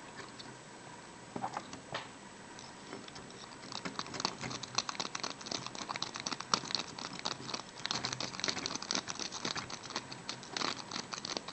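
A triple-peak rake being scrubbed in and out over the pins of an Am-Tech Top Security 6-pin pin-tumbler padlock under tension: rapid, irregular metallic clicking and scratching, a few separate clicks at first, then dense from about four seconds in.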